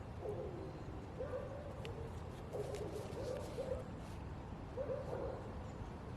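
Doves cooing: short, low, wavering coos repeated every second or so over a low background rumble.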